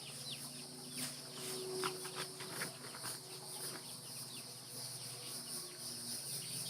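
Eight-week-old chicks peeping in short, scattered falling chirps, over a steady high insect drone.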